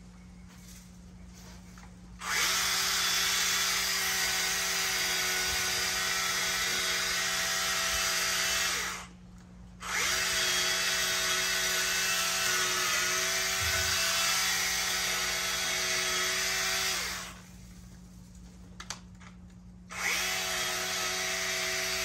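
Cordless battery-powered mini chainsaw running in three runs of several seconds each, its electric motor and chain whining steadily as it cuts through leafy plant stems. Each run spins up quickly when the trigger is pressed and winds down when it is released; the last starts near the end.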